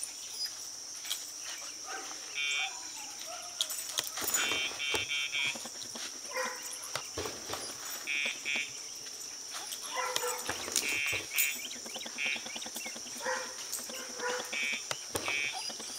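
Dogtra remote training collar's pager giving short groups of electronic beeps, two to four quick beeps at a time, repeated every few seconds.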